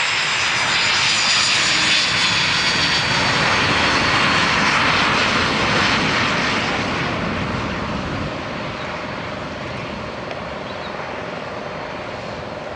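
Aermacchi MB-326 Impala's Rolls-Royce Viper turbojet running loud with a high whine as the jet rolls along the runway. The sound fades over the last few seconds as the aircraft moves away.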